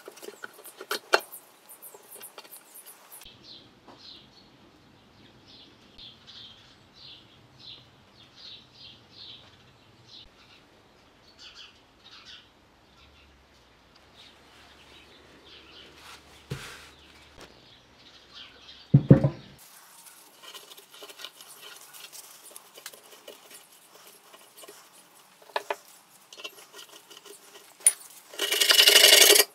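Handling of a rusty steel tiller fuel tank on a wooden bench: a few light clicks, one heavy thump about two-thirds of the way through, and near the end a putty knife starts scraping rust off the tank.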